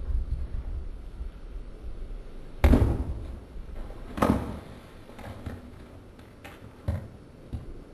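Cinder-block wall being smashed down: two loud crashes about a second and a half apart as blocks break out and fall, then several lighter knocks of loose pieces.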